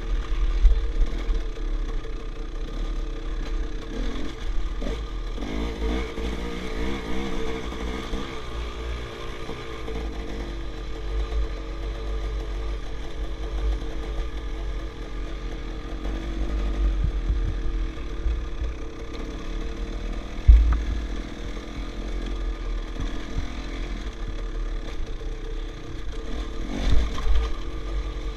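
Enduro dirt bike's engine running at low, uneven revs, rising and falling with the throttle over rough ground, heard from the rider's helmet with wind rumbling on the microphone. A sharp thump about twenty seconds in and a few more near the end.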